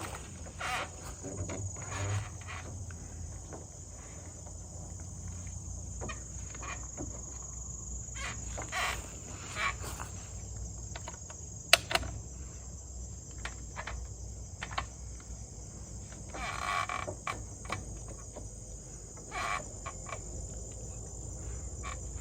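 Steady, high-pitched chorus of crickets and other insects, with scattered knocks and clicks and one sharp crack about twelve seconds in.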